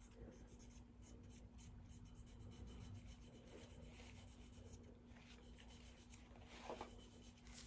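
Faint scratching and rubbing of a cotton swab being worked through a Glock 19 pistol slide, with a slightly louder scrape near the end, over a steady low hum.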